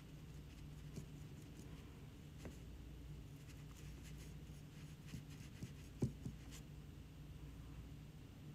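Faint scratchy strokes and dabs of a small paintbrush applying glaze to a ceramic palette, with a few light taps, the clearest about six seconds in, over a low steady room hum.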